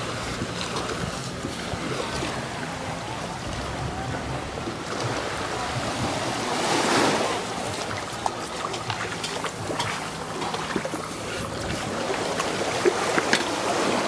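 Small waves washing on a sandy beach, with wind buffeting the microphone and a low steady engine hum underneath. A few sharp clicks come near the end.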